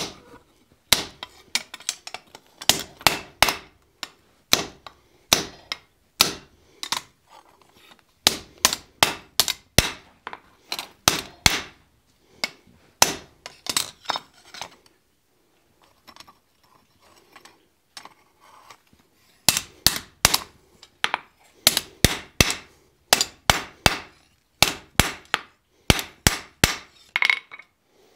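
Hand hammer striking hot steel on an anvil, upsetting a bar held in tongs: runs of sharp blows, about two or three a second, with a pause of a few seconds midway holding only a few faint knocks.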